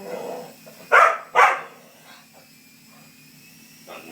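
Small dog barking twice in quick succession about a second in, while hunting a toy helicopter.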